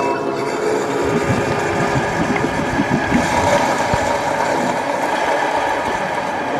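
Water churning and bubbling steadily in a plastic bucket, a continuous motorboat-like gurgle made live as a sound effect.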